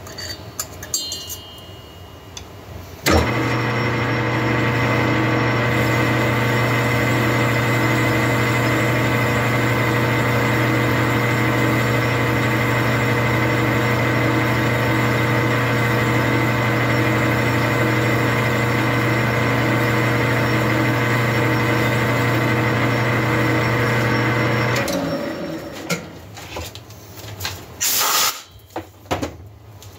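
A metal lathe switches on with a click about 3 s in and runs at a steady speed with a hum and gear whine while the chuck turns a chainsaw cylinder for a cut on its squish band. About 25 s in it is switched off and spins down, followed by a few metallic clicks and clinks.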